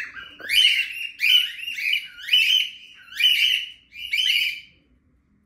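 Pet parrots (lovebirds and cockatiels) screaming: about five loud, harsh calls, roughly one a second, each sweeping up in pitch and then held, stopping shortly before the end.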